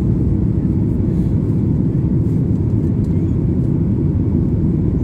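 Steady low cabin roar inside a Boeing 737 MAX 9 in flight: the hum of its CFM LEAP-1B engines blended with airflow noise over the fuselage.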